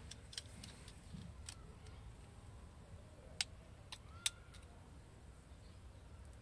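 A few faint sharp clicks from a snap-off utility knife blade cutting into the outer jacket of a piece of coaxial TV cable, two louder ones about three and a half and four seconds in. Under them is a faint low rumble.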